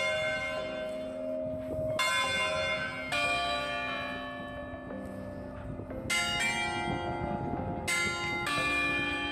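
Automated church bells ringing close up in the belfry: several bells of different pitch struck one after another, roughly every one to three seconds, each stroke ringing on under the next.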